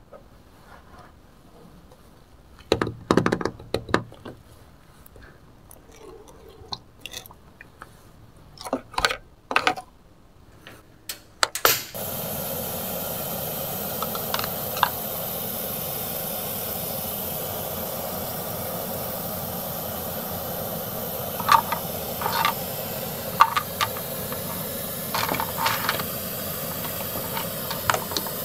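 Light plastic clicks and knocks as toy cookware is handled. About twelve seconds in, the toy stove starts a steady hiss as it puffs steam-like mist over the pan, with a few plastic clicks over it.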